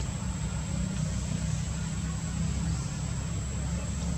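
A steady low rumble with a thin, constant high-pitched whine above it.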